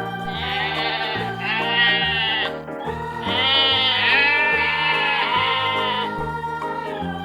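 Sheep bleating: two long, wavering bleats, one after the other, over background music.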